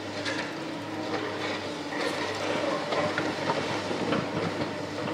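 Tracked hydraulic excavators demolishing a reinforced-concrete canopy: the diesel engine and hydraulics run with a steady hum, under irregular clanks and crunches of the demolition tool working concrete and steel.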